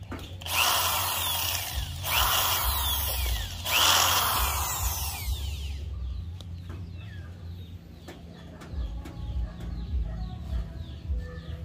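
Corded electric drill running in three bursts of about a second and a half each, its bit widening a nail-punched pilot hole through the base of a ceramic bonsai pot. It stops about six seconds in.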